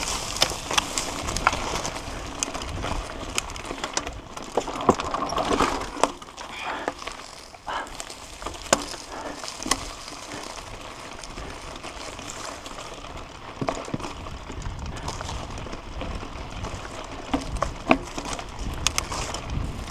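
Mountain bike riding over a rough dirt trail: steady tyre and wind noise with frequent rattling clicks and knocks from the bike. Quieter for a few seconds in the middle, with a run of sharp knocks near the end.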